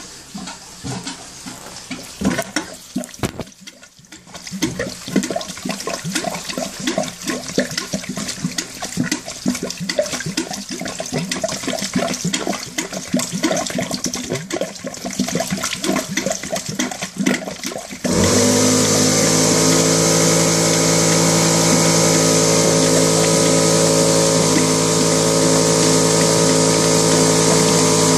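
Sludgy heating-circuit water gushing and splashing from a drain hose into a toilet bowl during a heating-system sludge flush. About eighteen seconds in, a pump motor starts abruptly and runs on steadily and loudly with a hum, as hydrodynamic flushing begins.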